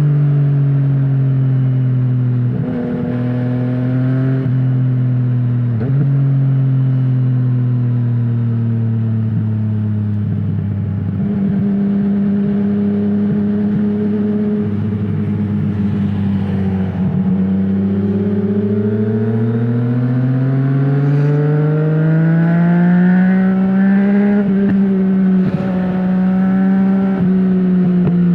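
Yamaha MT-09's 847 cc inline-three engine running through an Akrapovic full-system exhaust with no dB killer, heard from the rider's seat. The revs fall with a few short breaks through the first ten seconds or so and stay low for a while. From around the middle they climb steadily under acceleration, with two brief dips near the end.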